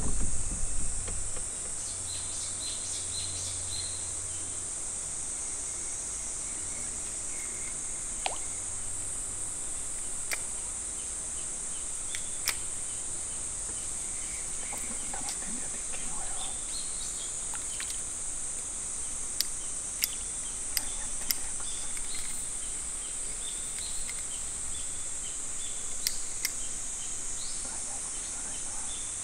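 Steady, high-pitched drone of insects, with short bird chirps here and there and a few sharp clicks scattered through.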